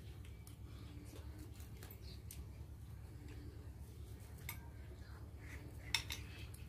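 Metal spoons clinking and scraping against earthenware bowls as food is eaten: a scatter of faint, irregular clinks, with a sharper one near the end.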